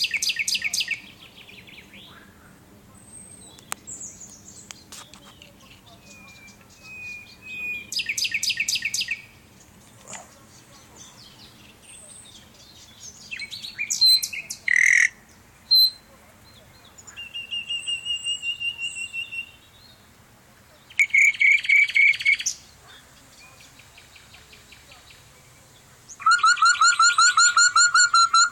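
Nightingale singing separate varied phrases with short pauses between them: whistled notes, runs of repeated notes, and rapid trills. The loudest is a fast, loud trill near the end.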